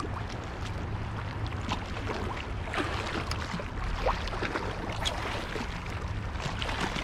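Small waves lapping and splashing irregularly against a rocky seawall, over a steady low wind rumble on the microphone.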